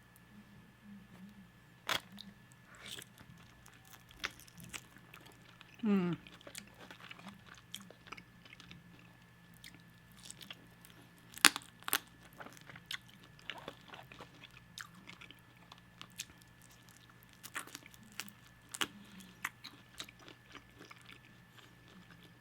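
Close-miked eating of sauced chicken wing flats: irregular biting, chewing and crunching with sharp wet clicks. A short falling hum comes about six seconds in.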